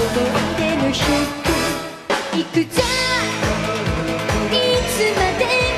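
Live pop-rock band playing with drums and electric guitar, and a woman singing. The band drops out briefly about two seconds in, then comes back in with sharp hits.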